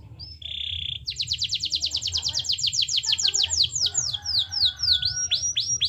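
Domestic canary singing: a short buzzy note, then a long fast trill of about ten notes a second that slows into downward-sweeping notes, ending in a few quick rising notes.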